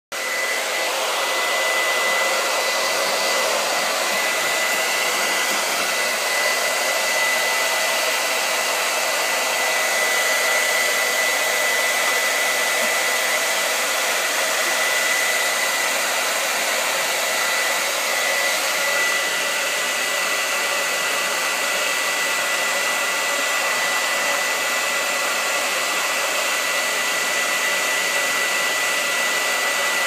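Handheld hair dryer running steadily on one setting: a continuous blowing hiss with a thin, steady high whine over it.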